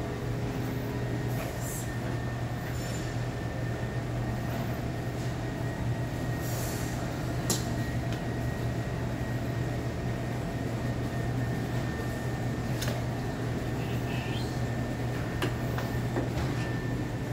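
Steady low droning hum of background machinery, with a few light clicks and brief rustles as a black leather thigh-high boot is pulled off.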